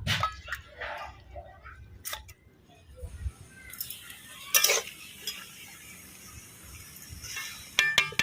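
Metal dishes and utensils clinking and scraping now and then, with a quick run of ringing clinks near the end.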